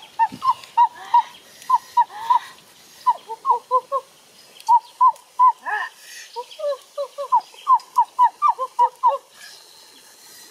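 A bird calling in a fast series of short, clear chirps, some pitched lower, with a brief pause about four seconds in.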